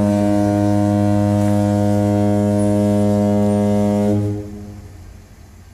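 Ship's horn sounding one long, low blast of about four seconds, then fading away.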